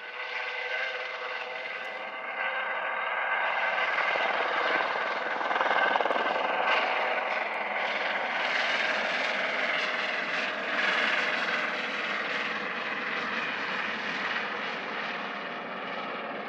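Airbus Helicopters H130 single-turbine helicopter at takeoff power as it lifts from a hover and departs: a steady turbine and rotor whine that grows louder about four seconds in, then eases slightly near the end.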